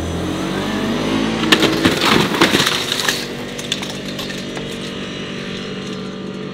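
A vehicle's engine revving up, with a burst of crashing and breaking from about a second and a half in that lasts about a second and a half as the vehicle smashes into a table, then the engine running on steadily.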